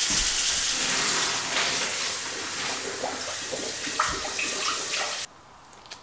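Kitchen faucet running into a metal saucepan at the sink, a steady rush of water with a brief knock near four seconds in, cutting off abruptly about five seconds in.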